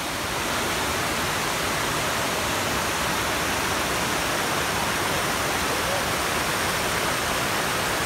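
Waterfall and river water rushing over rock ledges: a steady, even rush.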